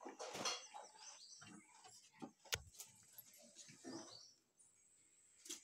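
Faint chirping of small birds, in short falling chirps, with a sharp click about two and a half seconds in.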